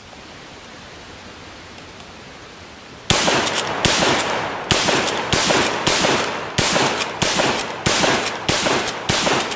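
Lee-Enfield No. 4 bolt-action rifle in .303 British fired in rapid succession, about ten shots roughly three-quarters of a second apart, starting about three seconds in.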